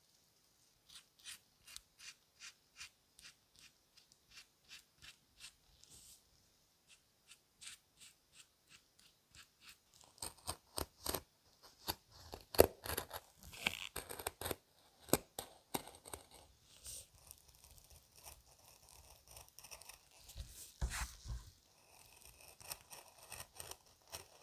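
Leather being cut along a marked line with scissors and a fine craft blade: a run of short, crisp cuts. They come about two a second at first, then faster and louder from about ten seconds in.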